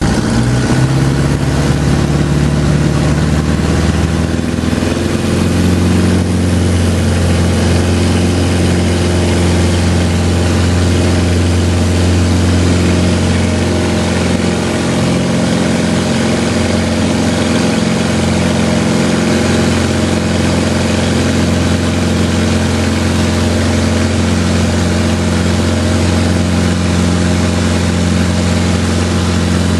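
Light single-engine piston airplane's engine and propeller at takeoff power during the takeoff and climb, heard from inside the cockpit: a loud, steady drone whose tone shifts once about five seconds in.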